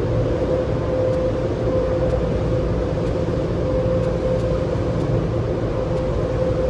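Automatic car wash machinery heard from inside the car: a steady, loud mechanical rumble with a constant hum.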